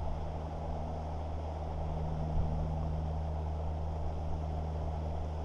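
A steady low mechanical hum, one pitch with an octave above it, over light background noise.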